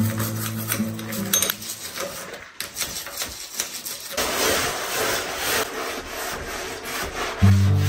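Toothbrush bristles scrubbing a chrome shower mixer tap in short strokes, then, about four seconds in, a gloved hand rubbing foamy window glass with a steady hiss. Acoustic guitar music fades out at the start and comes back near the end.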